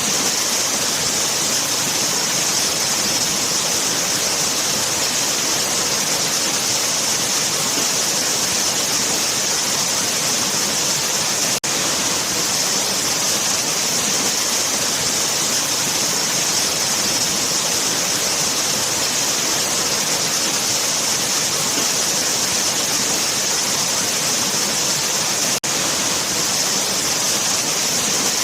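Waterfall: water falling in a steady, dense rush with a strong hiss in the upper range. It cuts out for an instant twice.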